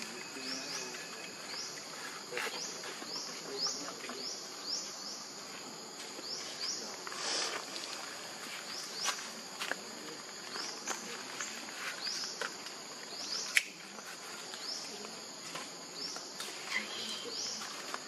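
Outdoor insect chorus: a steady high hiss with short rising chirps repeating about once or twice a second, and one sharp click about 13.5 seconds in.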